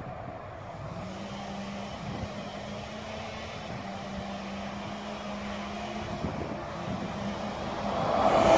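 Heavy lorry engines running on a dirt haul road: a steady hum that grows louder in the last second or so as a truck with a box trailer draws near.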